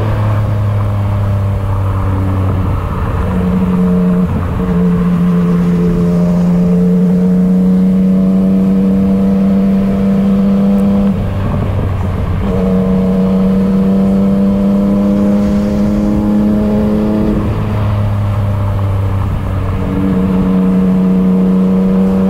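Yamaha MT-09's three-cylinder engine running through a loud exhaust under way in traffic. It holds a steady note that eases off and picks up again a few times.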